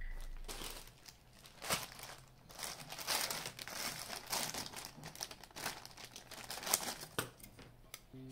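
Thin red plastic mailer bag crinkling and rustling as it is handled and cut open with scissors, in irregular bursts with a few sharp clicks, starting about a second in.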